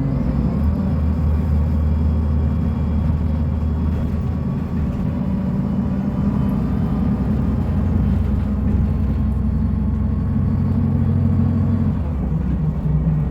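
Diesel engine of a Mercedes-Benz O500U city bus running steadily with a deep rumble. Its note drops about half a second in and rises again near the end.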